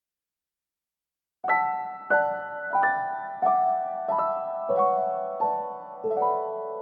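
Background piano music: after about a second and a half of silence, slow single notes are struck about every two-thirds of a second, each ringing on and fading.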